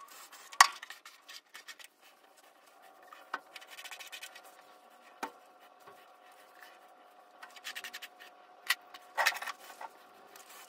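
Hands gathering and tying long hair, with rustling and scratching of hair and clothing and a few sharp clicks, the loudest about half a second in. A faint steady hum lies underneath.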